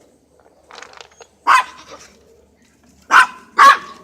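A dog barking three times: one short bark, then two in quick succession near the end.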